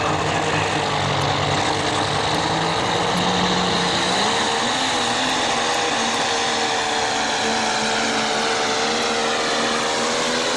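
Modified pulling tractor's engine running hard at full throttle while it drags a weight-transfer sled. Its pitch climbs about four seconds in and then holds steady at the higher speed.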